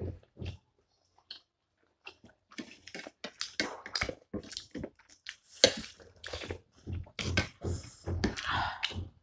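Close-up eating sounds of momo dumplings and soup: chewing, lip smacks and slurps, with spoons and forks on china plates. It is sparse for the first couple of seconds, then grows busier about halfway through.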